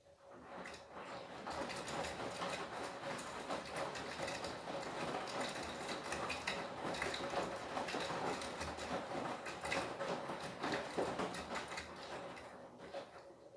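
Beko WTK104121W washing machine drum turning during a cottons wash, tumbling the wet load with a dense, crackly sloshing full of small clicks. It builds up over the first second or so and dies away near the end as the drum stops.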